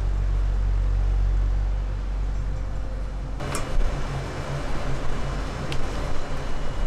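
Steady low hum of an electric fan in a small kitchen. After about three and a half seconds it changes abruptly to busier room noise with a few sharp clicks and clatters as gloved hands handle sheets of grilled pork jerky on metal trays.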